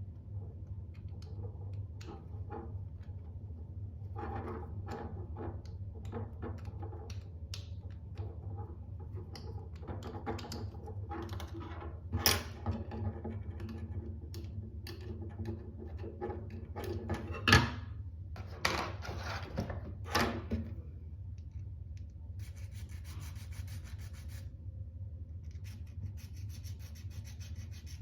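Small 3D-printed plastic parts being handled and worked by hand: rubbing and scraping, with three sharp clicks spread through the middle. Near the end comes a fast, repeated scratching, over a steady low hum.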